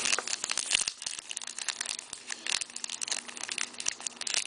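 Crinkling and rustling of a trading-card pack wrapper, with cards being handled, in a string of small irregular crackles.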